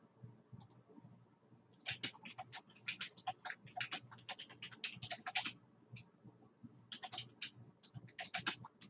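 Quick, irregular light clicks and taps in two runs: the first starts about two seconds in and lasts a few seconds, the second comes near the end.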